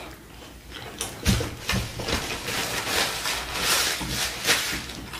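Close-miked chewing of a mouthful of cheeseburger: a dense run of wet smacks and clicks starting about a second in, with a paper napkin rustling as hands are wiped toward the end.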